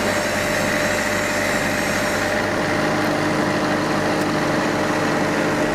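An engine running steadily at an idle.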